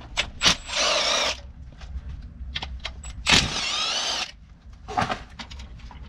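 A small electric power tool on an 8 mm socket runs in two short bursts with a wavering whine, undoing the screws of the cover over the water pump. Light clicks and knocks of tool and metal come between the bursts.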